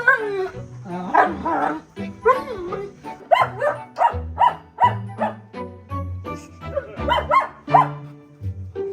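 German Shepherd vocalizing: wavering, drawn-out whines for the first couple of seconds, then a run of short barks, about two or three a second. Background music with a steady bass line plays underneath.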